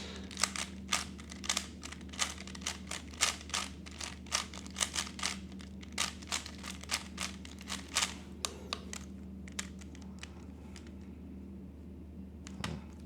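3x3 speedcube being turned fast during a timed solve: a quick, irregular run of plastic clicks and clacks as the layers snap through turns, thinning out about ten seconds in, with a few more near the end.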